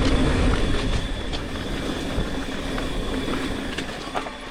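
Mountain bike riding down a rough dirt trail: a steady rumble of tyres and wind on the rider-worn camera, with the bike rattling and a few sharp knocks, growing quieter toward the end.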